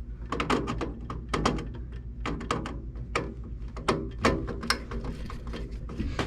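Irregular small clicks, taps and rattles of hands and tools working wires onto a furnace's terminal strip, over a low steady hum.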